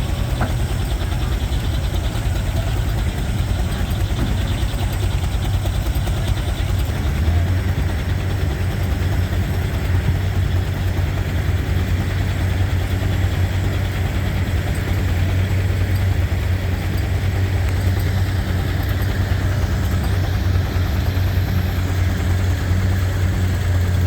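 Frick 8 1/2 x 10 steam traction engine driving a belted sawmill, running steadily with a strong low hum that gets louder about seven seconds in.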